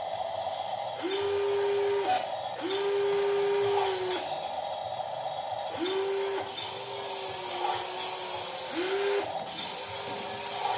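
Small electric motors of a metal RC construction model working in repeated spells, each a whine that rises quickly to a steady pitch and holds for about half a second to two seconds, about six times, over a continuous higher motor hum.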